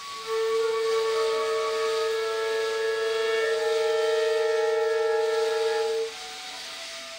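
Orchestra holding a long sustained chord: one loud note is held for about six seconds over quieter held notes above it, with a soft hiss behind. The loud note stops about six seconds in and the sound drops back to the quieter notes.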